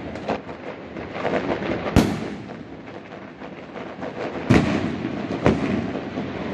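Fireworks going off: three loud bangs about two, four and a half and five and a half seconds in, over a continuous crackle of many smaller pops.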